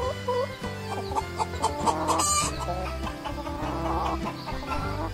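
Several hens clucking, with many short rising clucks repeating throughout and one louder, longer call about two seconds in.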